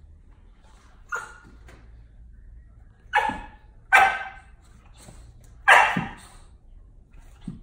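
Boxer puppy play-barking: one small bark about a second in, three loud barks at about three, four and six seconds in, and a short faint one near the end.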